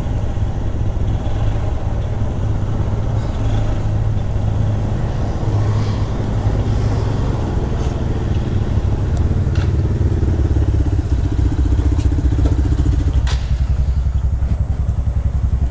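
Motorcycle engine and exhaust running steadily while the bike is ridden, a continuous deep pulsing beat.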